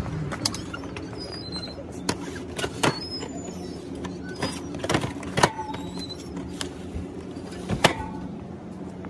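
Sharp clicks and knocks of a shop's glass door and a drink cooler's glass door being opened and cardboard drink cartons being handled, scattered through the stretch over a steady low hum.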